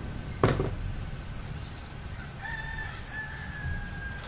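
A single sharp knock about half a second in, then a rooster crowing in the background for nearly two seconds from about halfway through.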